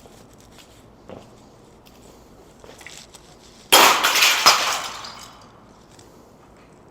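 A sudden loud crash and clatter almost four seconds in, rattling on for about a second and a half before dying away, after a couple of faint knocks.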